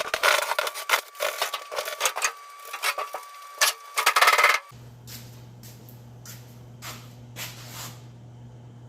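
A quick run of sharp metallic clicks and rattles from the gun safe and refrigerator hardware being handled and tried out. After about four and a half seconds it thins to a few separate clicks over a steady low hum.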